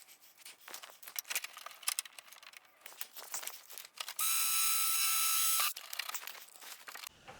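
Scattered light clicks and taps of hands working small hardware on the car's rear diffuser, with one steady mechanical whir in the middle that starts and stops abruptly after about a second and a half.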